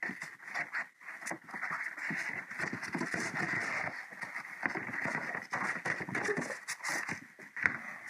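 Cardboard access panel on the back of a refrigerator being handled and pulled off: irregular rustling and scraping of cardboard against the metal cabinet.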